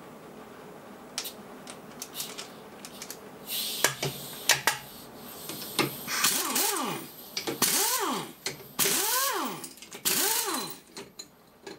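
Air impact wrench undoing bolts in short bursts, four times its motor speeding up and winding down again with a loud hiss. Light metallic clicks of tools and parts come first and between the bursts.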